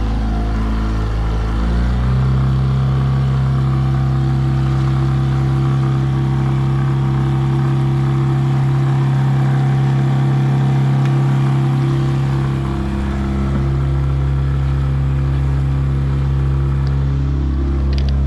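2019 Mercury 9.9 four-stroke kicker outboard, a small two-cylinder, running under load and pushing the boat at low speed. About two seconds in it is throttled up, its pitch stepping higher, and then runs steadily, with the sound of water along the hull.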